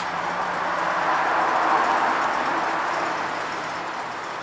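Vehicle noise: a steady rushing sound with a faint low hum underneath, swelling about a second or two in.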